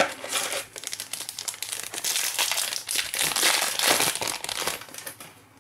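Foil wrapper of a Panini Prizm Fast Break trading-card pack crinkling and crackling as hands pull the pack open. It is loudest in the middle and dies away near the end.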